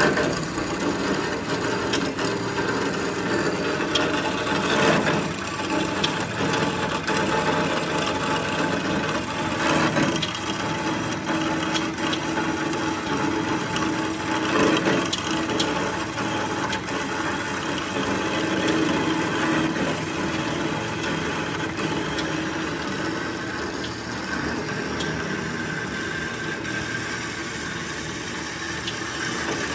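Kalamazoo H9AD horizontal metal-cutting band saw running, its blade sawing steadily through a thick piece of metal: an even rasping noise with a faint steady motor tone under it.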